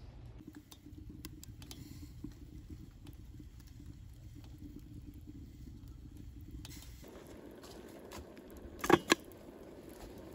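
Small wood fire burning in the fire base of a Kelly Kettle camp kettle, crackling with scattered small pops over a low steady background. Two loud, sharp clicks come close together about nine seconds in.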